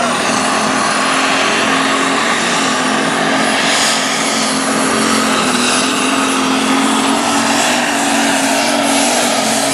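Light Super Stock pulling tractor's turbocharged diesel engine running flat out as it drags the sled down the track, a steady drone with a high turbo whistle held over it.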